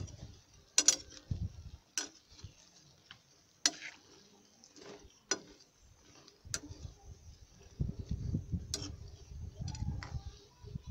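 A metal spoon clinking against an aluminium frying pan while boiled fava beans are stirred to mix in salt. There are about nine sharp clinks at uneven intervals of a second or two, and a low rumble for a couple of seconds near the end.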